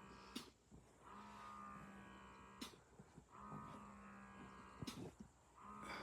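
A sleeping baby snoring faintly: each breath brings a steady buzzing snore of about a second and a half, ending in a short click, repeating about every two seconds.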